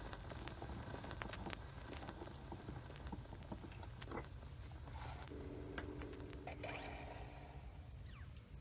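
Quiet animated-film soundtrack: scattered light clicks and taps over a low hum, with a short steady tone from about five to seven seconds in.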